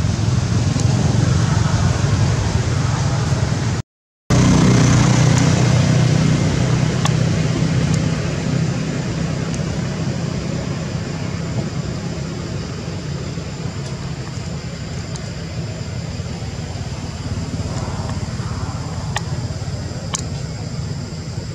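Steady low rumble of a motor vehicle's engine running nearby. It cuts out for a moment about four seconds in, then slowly fades.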